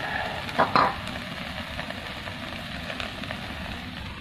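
Tomato masala sizzling in oil in an iron kadhai. A metal spatula scrapes the pan twice, loudly, a little under a second in, then the sizzling runs on steadily. It ends with a sharp clank as a steel lid is set over the pan.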